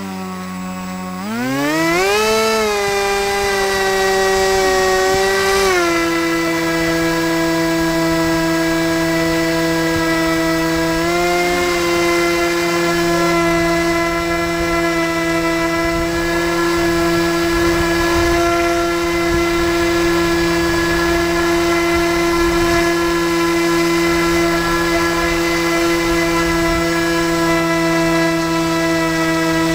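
HobbyKing Swampdawg RC airboat's electric motor and air propeller running: a whine that rises sharply about a second in as the throttle opens, eases off a little a few seconds later, then holds steady under a low hum.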